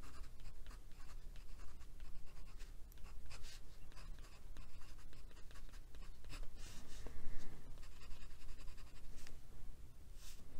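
Glass dip pen nib scratching across watercolour paper in a run of short pen strokes as words are written. It is a light, even scratch that does not catch on the paper.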